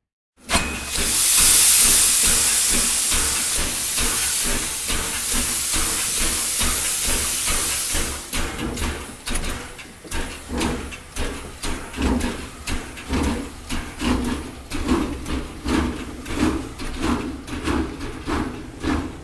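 Steam locomotive departing. A loud steam hiss starts suddenly and runs for several seconds, then gives way to regular exhaust chuffs at about two a second over a low rumble.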